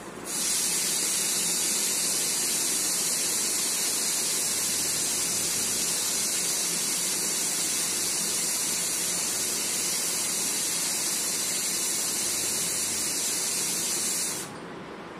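A loud, steady high hiss that starts suddenly just after the beginning and cuts off suddenly near the end.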